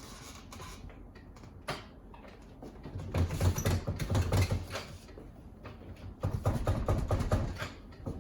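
Work on an old wooden window: two spells of rapid scraping and knocking of wood, starting about three and six seconds in, each lasting a second or more, with a few single knocks between.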